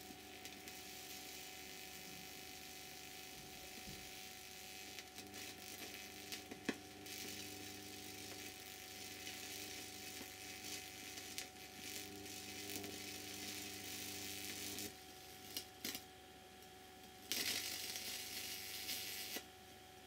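High-voltage arc on a bug zapper grid fed by a ballasted microwave oven transformer, crackling and hissing as it burns through a plant stalk lying across the wires, with sharp snaps and a steady hum beneath. The crackle stops about three quarters of the way in, gives two short snaps, then comes back louder briefly near the end and cuts off.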